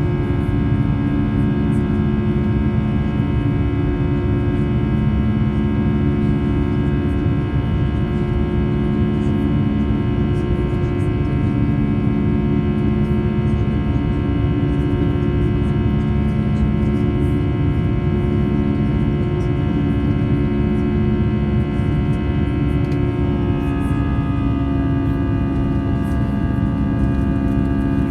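Airbus A320 cabin noise from a forward window seat: a steady jet engine drone with a whine of several steady tones over a low rumble. About 24 s in, the engine tones shift slightly lower in pitch.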